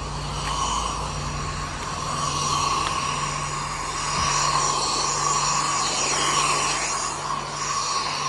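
Self-service car wash pressure washer running: a steady hiss of high-pressure spray over a constant pump hum.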